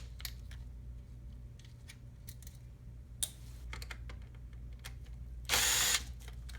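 Cordless power screwdriver running in one short burst of about half a second near the end, driving out a faceplate screw. A few light clicks come before it.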